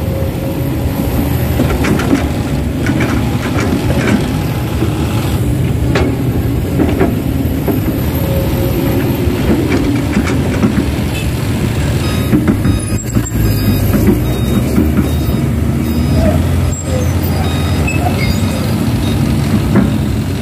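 Heavy diesel vehicle engines running with a steady low rumble, with scattered clicks and knocks over it.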